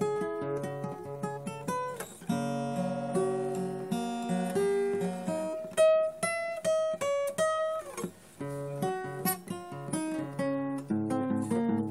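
Acoustic guitar music: single picked notes mixed with strummed chords, with a falling slide near the end of a phrase.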